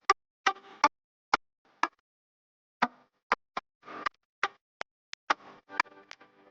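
A series of sharp clicks and taps at irregular intervals, a few with a brief ringing tone, separated by short silences.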